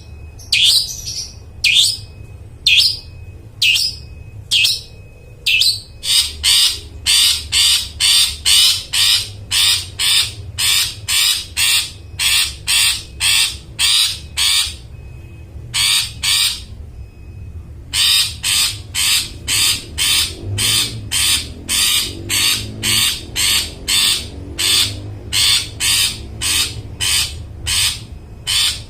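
Long-tailed shrike (cendet) giving harsh, rapidly repeated calls: spaced singly at first, then long runs of about two calls a second, broken by a short pause midway.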